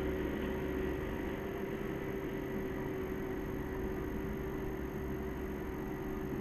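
Bobcat Toolcat 5600's diesel engine running steadily in the distance, slowly fading as the machine drives away.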